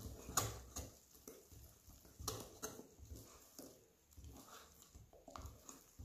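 Wire whisk stirring thick cake batter in a glass bowl: faint, irregular taps and clicks of the wires against the glass.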